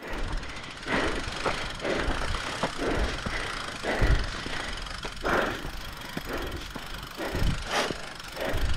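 Bike riding over a rough trail: irregular knocks and thumps over a steady rushing noise.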